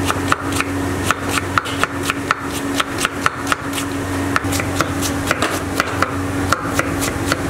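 Knife chopping through a cabbage onto a wooden chopping block, shredding it in fast strokes of about four a second, over a steady low hum.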